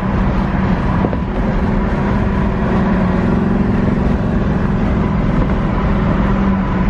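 Steady engine and road noise inside the cabin of a 1984 Oldsmobile Cutlass with a 403 V8, driving at highway speed, with a constant low hum throughout.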